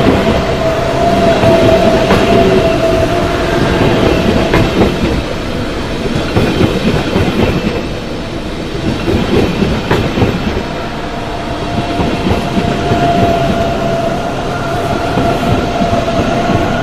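SBB ICN (RABDe 500) electric tilting train rolling past at moderate speed, wheels clattering over the rails and points. A steady high whine is heard at the start and again in the last few seconds.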